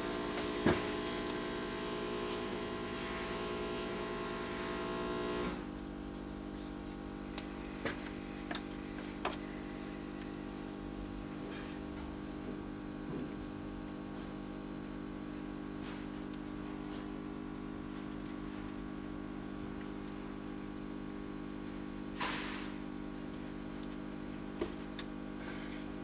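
Steady electrical hum with many overtones that drops a little in level about five and a half seconds in, as its upper tones fall away. A few light clicks and one short scrape come from handling the copper wire and the sword grip.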